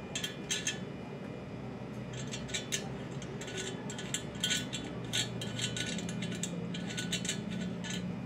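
Irregular light metallic clicks and clinks, some ringing briefly, as fingers work at the metal handle of a new cooking pot.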